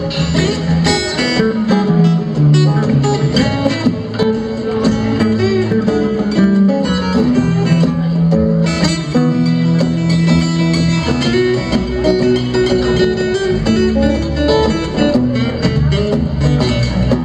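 Live band playing a blues number, with guitar to the fore and no singing.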